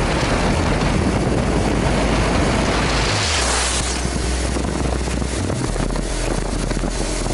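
Wind rushing over the microphone while riding a Honda CRF250L's single-cylinder engine along a wet road, with a low steady engine hum and tyre hiss beneath. A louder rush of hiss swells about three seconds in and fades a second later.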